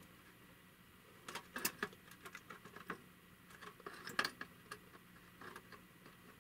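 Faint handling noise: small irregular clicks and light taps, a few at a time, over a faint steady low hum.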